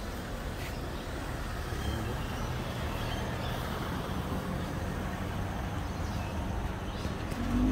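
Steady rumble of road traffic, a vehicle engine and tyres running on the street, growing a little louder near the end.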